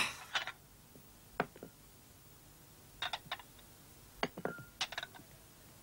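China plates being set down on a table one after another: a series of light clinks and knocks, a couple of them ringing briefly.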